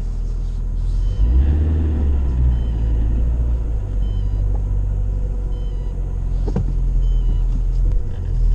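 Lada Priora engine running warm, a steady low rumble that grows louder about a second in, with a single sharp click about two-thirds of the way through.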